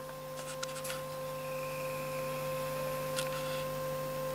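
Steady single-pitched test tone from a signal generator playing through the Stalker 9 CB radio's audio stage, which has just been repaired with a new UPC1182H audio amplifier chip, with a low hum beneath and a few faint clicks.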